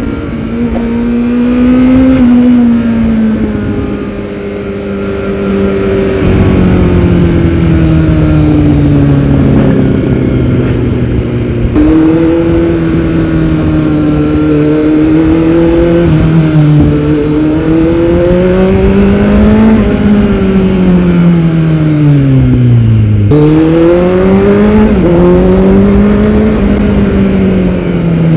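Kawasaki Z900's inline-four engine running through a Yoshimura R77 full-system exhaust while being ridden. The engine note repeatedly rises and falls as the bike accelerates, changes gear and rolls off, with a sharp drop and quick climb a few seconds before the end.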